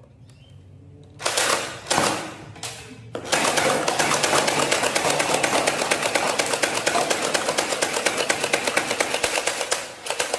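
Simulated gunfire: two short bursts, then rapid automatic fire at about ten shots a second, lasting about seven seconds.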